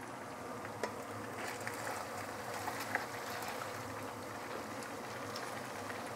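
Chunks of grouper deep-frying in hot palm oil: a steady sizzle and bubble, with a few sharper pops, the loudest about a second and about three seconds in.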